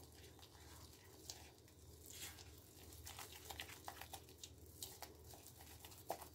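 Faint scraping and soft sticky clicks of a silicone spatula stirring flour, water and sourdough starter into a thick, lumpy paste in a bowl, coming more often from about halfway through.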